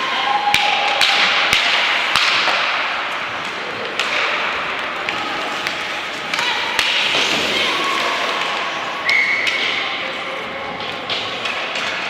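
Ice hockey play on a rink: skates scraping the ice, with sharp clacks of sticks and puck and thuds against the boards scattered through it.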